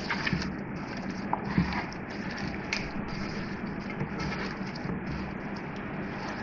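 A gloved hand squishing and rubbing a wet yoghurt-and-spice marinade into raw chicken pieces in an aluminium pot, with small irregular wet clicks. A faint steady hum runs underneath.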